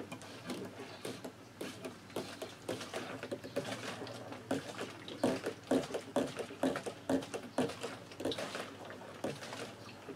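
Hand-operated plunger transfer pump drawing petrol from a jerrycan and pushing it through a hose into a plastic can: a rapid, uneven series of short pump-stroke sounds.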